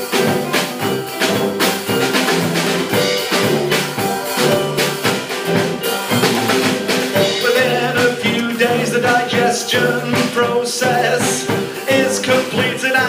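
A band playing live, with pitched instruments over a steady drum and percussion beat.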